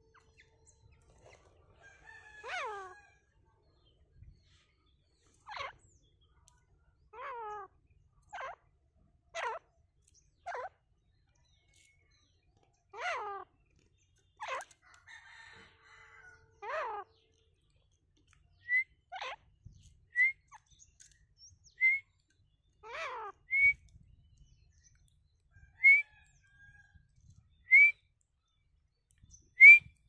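Grey francolin calling: a series of short calls, each falling steeply in pitch, one to three seconds apart. In the second half, short rising whistled notes about every two seconds come in and are the loudest sounds.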